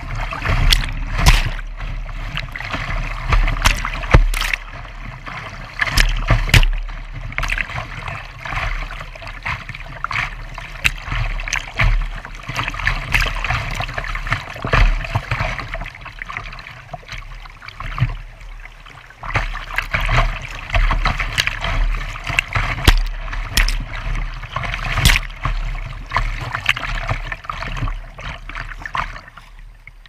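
Rushing whitewater around a kayak's bow, with frequent sharp splashes of water slapping the hull and paddle strokes.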